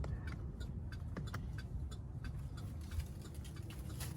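Faint, steady ticking of a 2008 Chevrolet Tahoe's turn-signal flasher, with a low steady rumble underneath.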